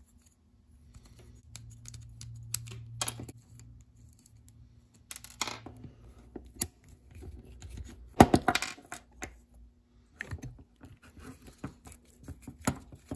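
Irregular light metallic clicks and clinks of an Allen key working the pulley bolt of a Shimano Ultegra rear derailleur, with small metal parts being handled. A louder cluster of knocks comes about two-thirds of the way through.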